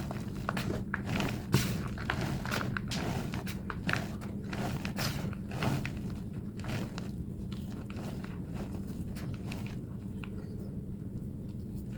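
Thick block of plain white gym chalk being crushed in sped-up playback, giving a quick run of crunches and squeaks that thins out after about six or seven seconds. A steady low hum lies underneath.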